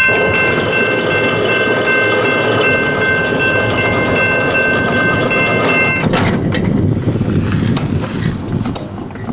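Railroad crossing bell ringing over a steady rushing noise as the crossing gate arms lift, stopping about six seconds in. After that a car drives over the crossing, with a few sharp clicks near the end.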